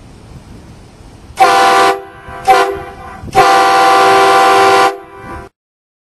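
Train horn mounted on a Dodge Durango, blowing three loud blasts: a short one, a very brief one, then one held for about a second and a half. Each blast is a chord of several steady tones.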